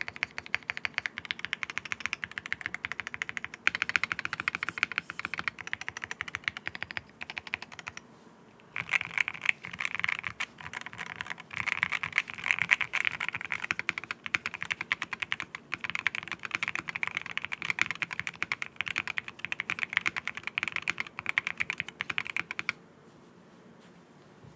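Fast typing on a QK60 mechanical keyboard fitted with Akko Rosewood linear switches, all the foams, an aluminium plate and ePBT keycaps: a dense run of keystrokes with a deep, thocky sound. The typing pauses briefly about eight seconds in and stops a couple of seconds before the end.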